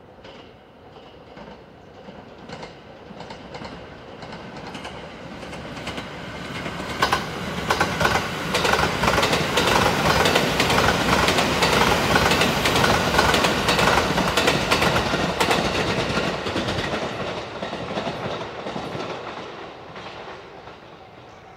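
Sunrise Seto sleeper train, a JR 285 series electric multiple unit, passing through at speed. It builds as it approaches, stays loud for about ten seconds with a rapid clatter of wheels over the rail joints, and fades away near the end.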